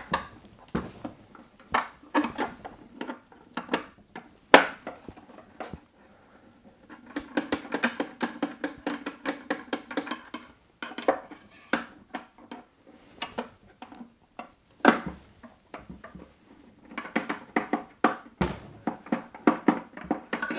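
A long-shafted screwdriver working the deeply recessed screws in the plastic rear case of a Macintosh Classic: sharp clicks and taps of the tool against the screws and case, the loudest about four and a half seconds in and again near fifteen seconds, with longer grating stretches as a screw turns.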